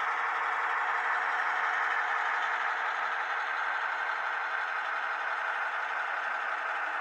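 HO scale model train running on the layout: a steady mechanical hum and rattle.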